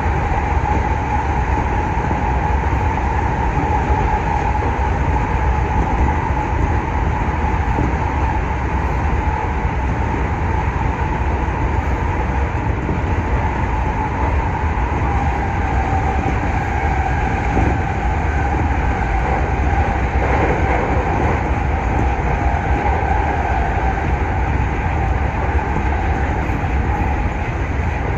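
JR West 225 series electric train running at speed, heard from inside the train: steady rumble of wheels on the rails with a steady mid-pitched hum running through it.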